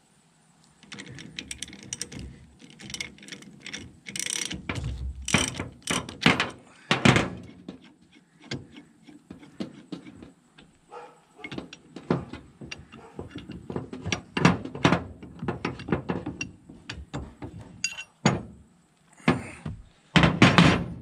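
Irregular metal clicks, clanks and knocks from U-joint caps and tools being worked into a double cardan driveshaft yoke, with a cluster of louder knocks a few seconds in and again near the end.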